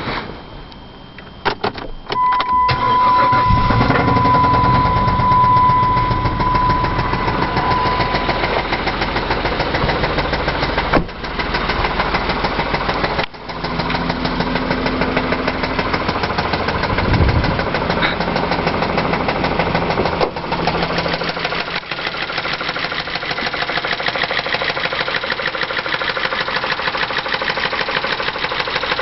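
Chrysler 2.7 V6 engine in a 2001 Concorde starting about two seconds in, then idling with a fast, even knock. This is the well-known 2.7 knock, caused by oil sludge from design flaws. A steady high tone sounds for several seconds right after it starts.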